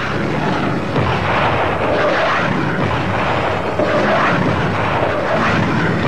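Chilean Air Force Hawker Hunter jet on a bombing run, a loud steady rushing jet roar.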